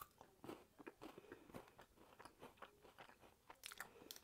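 A bite into a Kit Kat wafer bar, then faint, irregular crunching as the wafer is chewed.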